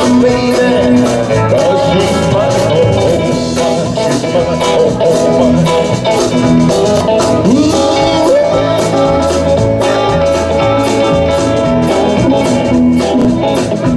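A live band playing with electric guitars and a drum kit to a steady beat.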